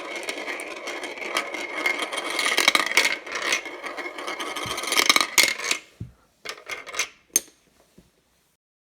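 Marbles rolling and clacking along a marble run in a dense rattle. About six seconds in it thins to a few separate clicks as the last marbles come to rest, then stops.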